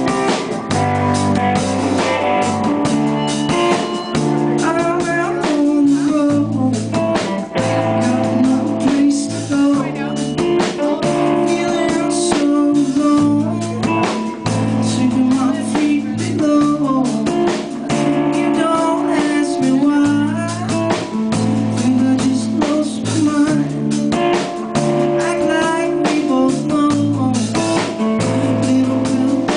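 A live rock band playing: electric guitar, electric bass guitar and drum kit, steadily and loudly throughout.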